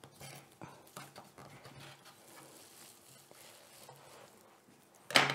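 Knife cutting a ball of fresh pasta dough into small pieces on a wooden cutting board: faint scattered taps and rustles, with one sharp, much louder knock near the end.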